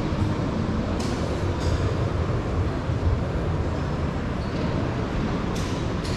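Steady low rumble of exhibition-hall background noise, with a few brief faint high-pitched sounds about a second in and again near the end.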